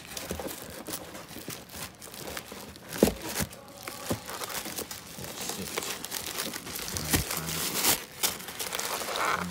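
Tissue paper crinkling and rustling as hands handle a sneaker in its shoe box and pull the tissue stuffing from inside it, with irregular crackles and a sharp tap about three seconds in.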